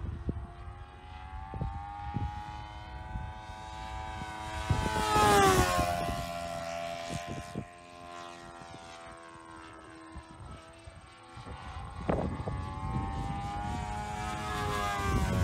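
Engine and propeller of a Sportster 60 RC model airplane droning in flight. About five seconds in it passes close, at its loudest, and its pitch rises and then drops. It fades, then grows louder again toward the end.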